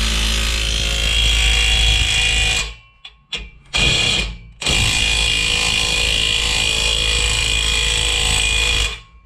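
Cordless power tool spinning a socket on an extension to run down the clamp nut on a new exhaust tip. It runs steadily for about three seconds, stops, gives a short burst, then runs again for about four seconds and stops just before the end.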